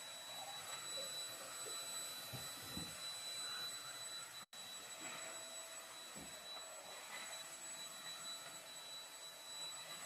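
Corded stick vacuum cleaner running steadily over a tiled floor, a faint even rush and whine with a few soft knocks. The sound cuts out for an instant about halfway through.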